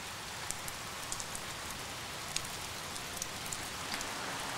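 Steady rain falling, a continuous hiss with scattered small drop ticks.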